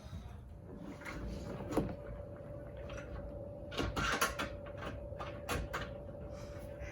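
Scattered knocks and clatter of shed-kit parts being handled and fitted, with one sharp knock about two seconds in and a burst of clattering around the middle. A faint steady hum comes in about a second in.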